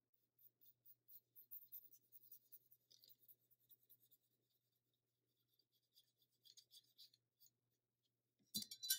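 Faint scratching of a watercolour brush dabbing on paper and rubbing in the paint pans, in two short spells. A louder scratchy scrubbing starts near the end.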